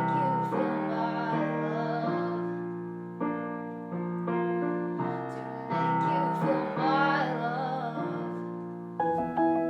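Piano playing slow, sustained chords while a female voice sings over them in two phrases. Near the end the piano changes to brighter, separate notes.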